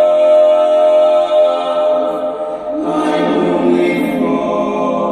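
Barbershop quartet of four men singing a cappella in close harmony: a long held chord, then the voices move to a new chord about halfway through.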